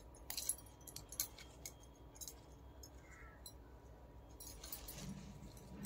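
Faint scattered clicks and light snaps of leafy greens being picked off their stems by hand, with bangles clinking on the wrists.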